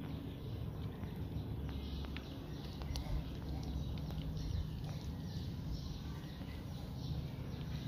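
Cats chewing and eating fish from a bowl: small, irregular wet smacks and clicks.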